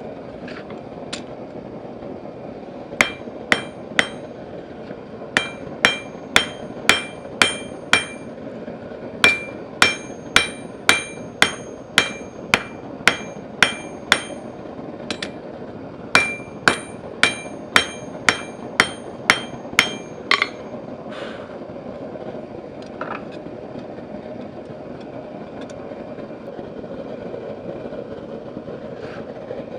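Blacksmith's hammer striking steel on an anvil, each blow ringing, in runs of about two blows a second with short pauses, the hammering stopping about two-thirds of the way through with a few lighter taps after. A steady low hum runs underneath.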